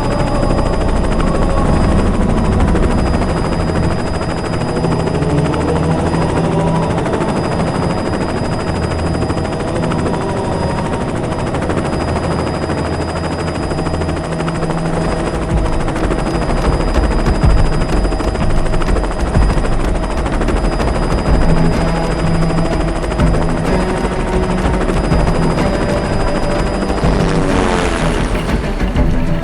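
Helicopter rotor and engine noise, steady and dense, mixed with faint music; the noise sweeps away near the end as the music comes forward.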